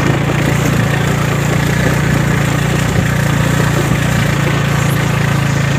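TVS NTorq 125 scooter's single-cylinder engine running steadily at low riding speed over a rough, wet dirt track, a constant low hum with no revving up or down.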